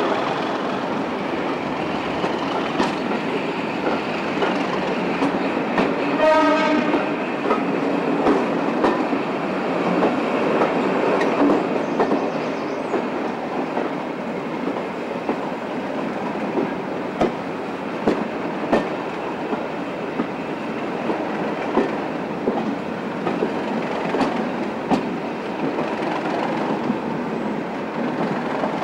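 Class 37 diesel locomotive's English Electric V12 engine working hard as the train pulls away and gathers speed, heard from an open carriage window, with the carriage wheels clicking over the rail joints. A short horn blast sounds about six seconds in.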